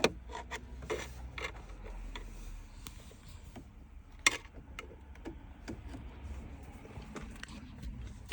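Irregular small clicks and taps of hands and tools working in a car's dashboard opening, with one sharper click about four seconds in, while a dropped screw is searched for.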